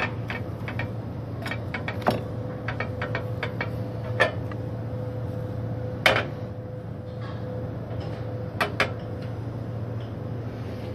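Butter melting in a stainless steel frying pan on a portable gas burner: scattered light crackles and ticks, with a few louder knocks of the pan and utensils, two of them close together near the end. A steady low hum runs underneath.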